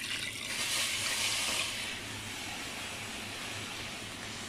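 Water poured from a plastic pitcher into a cooking pot of sautéed chicken and vegetables, splashing loudest for about the first two seconds. A steady hiss carries on after the pour.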